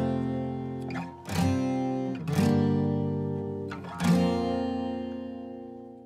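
Background music: an acoustic guitar strumming chords, struck three times, with the last chord ringing out and fading away near the end.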